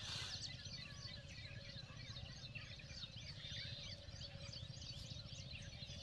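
A dense chorus of small birds chirping and twittering over a low rumble.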